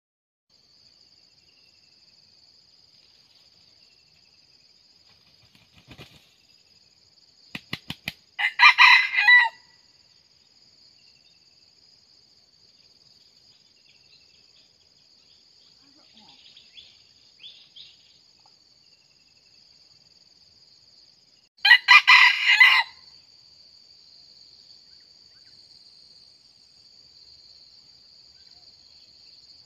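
Red junglefowl rooster crowing twice, short crows about thirteen seconds apart, the first preceded by a quick run of wing claps. A steady high-pitched insect trill sits behind.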